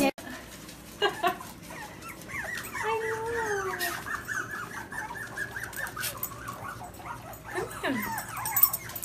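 A litter of young puppies squeaking and whining: many short, high squeals overlapping, with a longer falling whine about three seconds in and another near the end.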